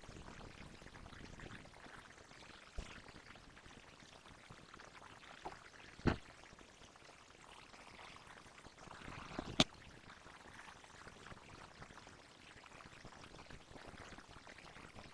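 Soft, wet sounds of homemade slime being worked, broken by a few sharp clicks, the loudest about six and nine and a half seconds in.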